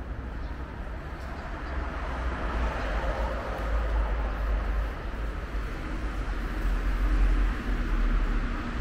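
Train passing on the elevated railway overhead: a low rumble that builds from about two seconds in and is loudest near the end, with a faint steady hum joining in the second half.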